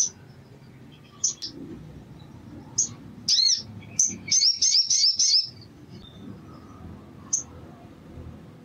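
Male olive-backed sunbird calling: sharp, high-pitched chirps spaced a second or more apart, with a quick run of about half a dozen chirps from about four seconds in.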